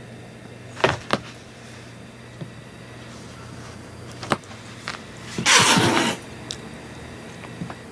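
Domestic tabby-and-white cat hissing once, a loud hiss of under a second about two-thirds of the way through, a threat display aimed at a cat teaser wand. A few sharp knocks come earlier.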